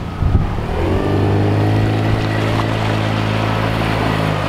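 Outboard motor on a small boat throttling up about a second in as the boat pulls away, its pitch rising and then holding steady at running speed.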